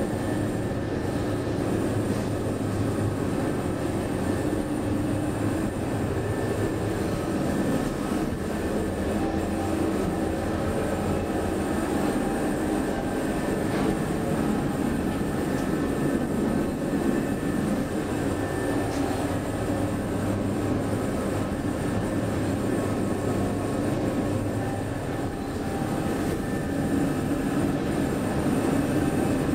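KONE inclined elevator car running along its inclined track, heard from inside the car: a steady running noise with a faint whine over it.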